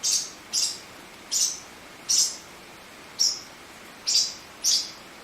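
Young parrot chicks, about five weeks old, giving short, high chirps, seven in all at uneven intervals of roughly half a second to a second.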